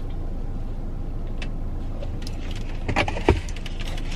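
Steady low rumble inside a parked car, with a few small clicks. About three seconds in comes a short, louder sip of lemonade through a straw, ending in a swallow.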